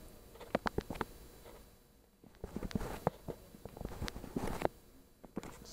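Light scattered clicks and soft rustling of hands handling small objects, with a near-silent gap about two seconds in.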